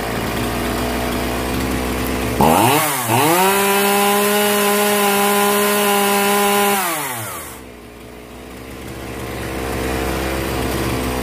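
Zenoah G3800 two-stroke chainsaw engine idling, revved to full throttle about two seconds in and held high for about four seconds, then dropped back to idle. It stumbles briefly before settling. This is carburettor tuning of the low, high and idle screws, with the mixture now roughly set.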